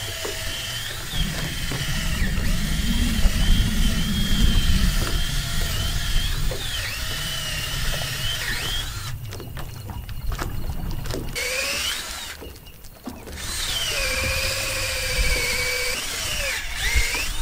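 Cordless drill boring a bolt hole through a wooden dock piling. The motor whine wavers and dips as the bit loads up in the wood, stops briefly about twelve seconds in, and starts again with a rising pitch.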